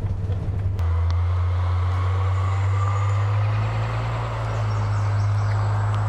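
Steady low engine hum of a shuttle bus, with an abrupt change in the sound a little under a second in.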